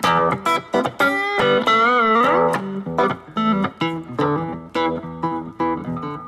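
Guitar music: a quick run of plucked notes, with a wavering, sliding note about two seconds in.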